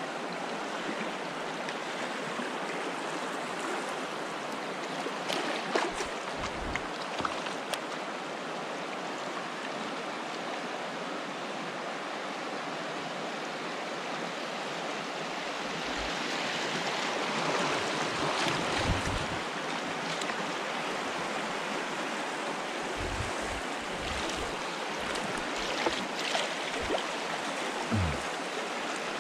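River rapids: fast, turbulent current rushing steadily around a fishing kayak. A few light knocks are heard, twice in the first third and again near the end.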